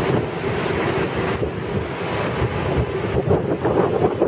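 Bombardier M7 electric multiple unit at the platform, its onboard equipment giving a steady hum, with wind buffeting the microphone.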